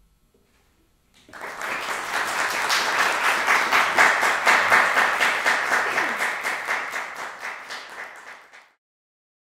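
Audience applauding, starting about a second in, swelling and then tapering, and breaking off abruptly near the end.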